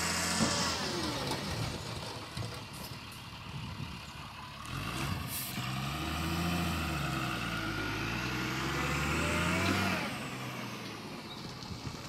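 Tata tipper truck's diesel engine running, revved up from about five seconds in and dropping back near the end, while it drives the hydraulic hoist that tips the dump body. A short hiss of air about five seconds in.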